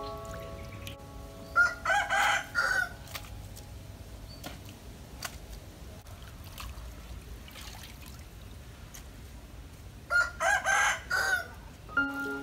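A rooster crowing twice, about eight seconds apart, each crow lasting a bit over a second.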